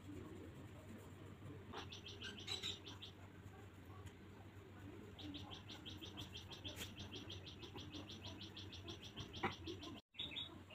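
A bird chirping in rapid, evenly spaced series of high notes, about eight to ten a second: a short run about two seconds in, then a longer run lasting about four seconds. The sound cuts out briefly near the end.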